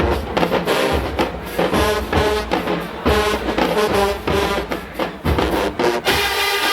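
Marching band playing, with trombones and trumpets carrying the tune over bass drums and drumline. About six seconds in, the drums drop out and a held brass chord is left.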